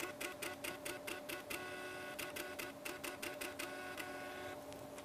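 Small built-in receipt printer of an AgriNIR feed analyzer printing out a TMR analysis. It makes a rapid, even run of clicks, about six a second, over a steady hum, and stops shortly before the end.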